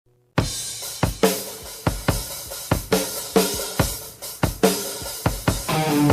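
Rock music: a drum kit intro of kick, snare and cymbal hits, with guitars coming in near the end.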